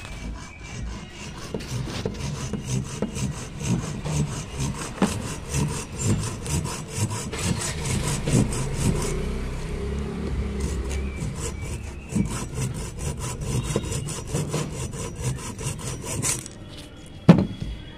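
Hacksaw blade sawing back and forth across the top of a motorcycle lead-acid battery, cutting down its broken lead terminals, in steady even strokes that ease off for a few seconds about halfway. A single sharp knock near the end.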